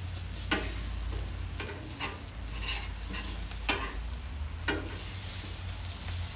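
Italian sausages and onions sizzling on a Blackstone flat-top griddle, a steady hiss with a low hum beneath. About six short clicks or taps come at irregular intervals.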